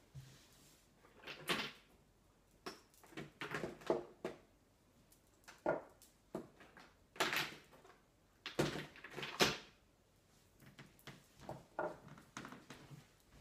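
Scattered, irregular knocks and clatter of someone moving about a room and handling things, the loudest cluster about halfway through.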